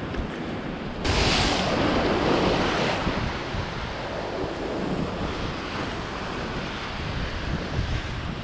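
Ocean swell surging and breaking against coastal rocks: a wave crashes suddenly about a second in and washes loudly for about two seconds before settling back into a steady rush. Wind buffets the microphone throughout.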